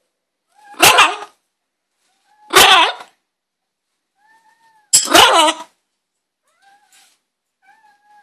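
Green-winged macaw giving three loud, harsh squawks a second or two apart, with a few soft, short, tonal calls in between and near the end.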